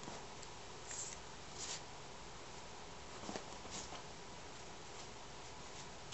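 A few brief rustles and scuffs of a bed sheet as a cat moves about on it, over a steady background hiss.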